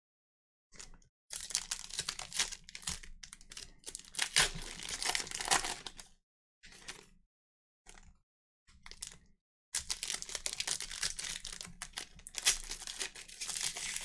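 Trading-card packs being torn open, their wrappers crinkling and tearing in several bouts with abrupt silent gaps between.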